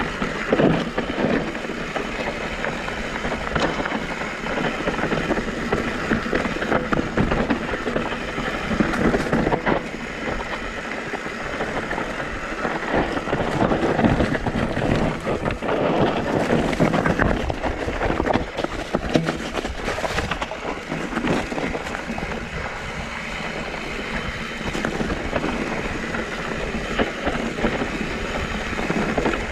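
Mountain bike riding down a dirt trail: steady tyre and wind noise on the microphone, with the bike's chain and frame rattling in quick clicks over bumps and louder surges on rough sections.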